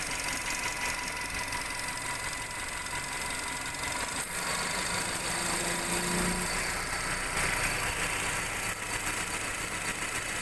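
Nissan Grand Livina engine idling with the air conditioning on, the AC compressor's magnetic clutch plate spinning with a steady jingling rattle. The clutch plate's rubber damper has worn away, leaving it loose.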